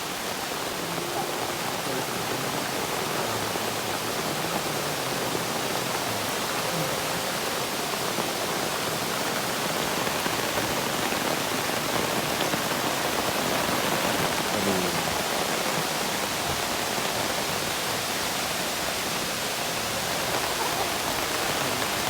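Heavy rain pouring down in strong wind, a dense, steady hiss that swells slightly around the middle.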